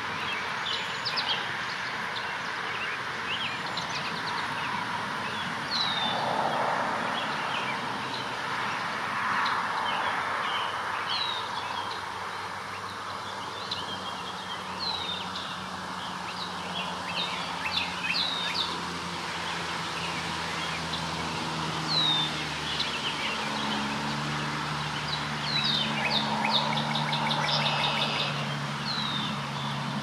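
Several songbirds chirping and calling, with a short downward-sweeping note repeated every few seconds, over a steady hiss of outdoor background noise. A low steady hum joins about halfway through.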